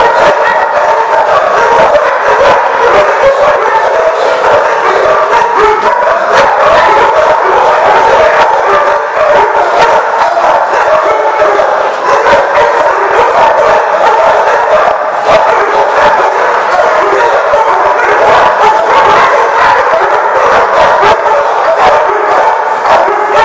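Several dogs barking over one another in a loud, continuous din.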